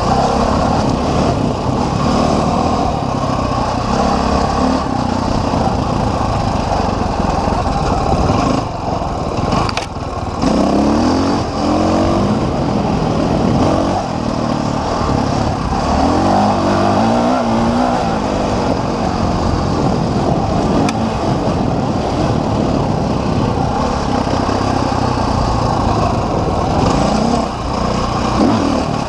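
Dirt bike engine ridden over a trail, revving up and down repeatedly as the throttle is worked, with the throttle shut off briefly about nine seconds in.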